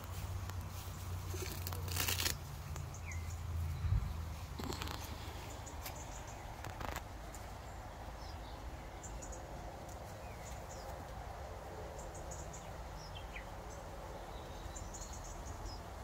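Faint, scattered bird chirps over a quiet outdoor hush, with a low rumble and a few short rustles and knocks in the first seven seconds.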